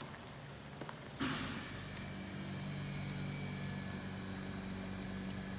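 A motor hums steadily with a few fixed tones, starting suddenly about a second in, after a faint hiss.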